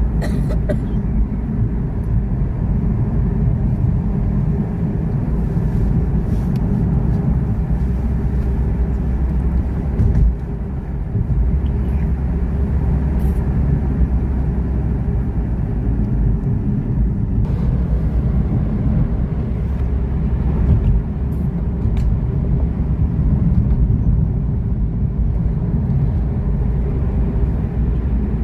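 Motor vehicle running, a steady low rumble, with a brief dip about ten seconds in.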